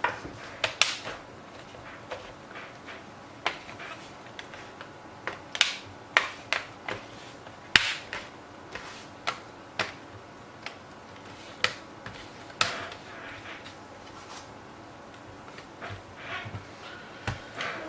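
Plastic screen bezel of a laptop lid being pressed into place, its snap-in tabs and clips giving irregular sharp clicks and snaps with handling knocks of the plastic between them.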